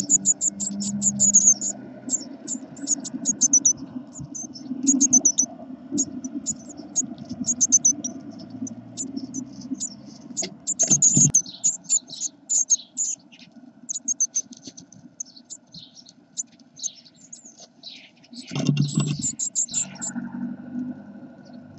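Blue tit nestlings begging: runs of rapid, very high-pitched cheeps, with the clicks and scratches of the adult working on the nest material, and a louder flurry of rustling near the end.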